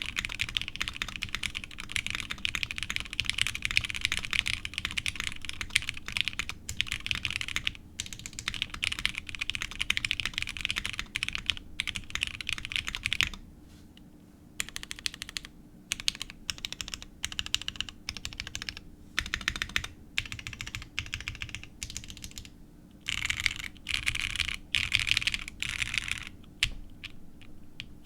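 Fast typing on a custom plateless 7V mechanical keyboard with lubed, Cherry-topped NK Silk linear switches and Geekark keycaps. It is a continuous run of key presses for about the first half, then short bursts broken by pauses, and another fast run near the end.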